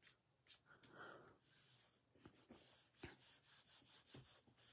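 Faint rubbing of hands smoothing a glued paper panel down onto a cardstock card, with a few light taps; otherwise near silence.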